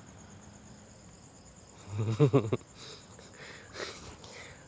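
Steady high chirring of night insects, with a man's short, low, pulsing chuckle about two seconds in, followed by a couple of breathy laughs.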